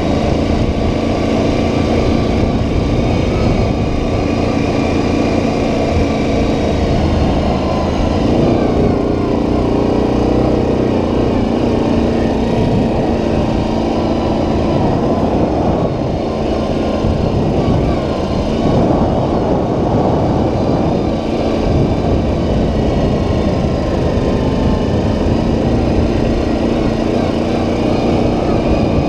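Single-cylinder ATV engine running steadily while riding a dirt trail, its note shifting slightly with the throttle and rising briefly about eight seconds in.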